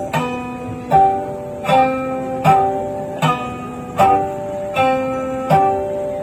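Plucked string instrument playing a steady repeating figure, a note or chord struck about every three-quarters of a second and left ringing, the pitches stepping through the same short pattern over and over.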